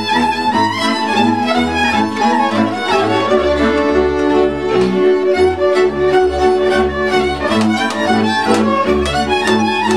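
A Transylvanian village string band plays an învârtita dance tune. Fiddles carry the melody over the contra's rhythmic chords and a double bass that changes note about every half second.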